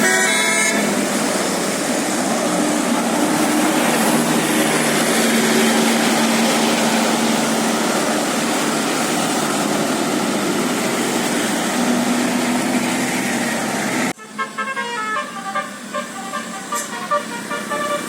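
A bus's 'telolet basuri' musical horn plays a tune that breaks off about a second in. Steady, loud vehicle and road noise follows. After an abrupt cut near the end, the horn plays a melody of quick stepping notes.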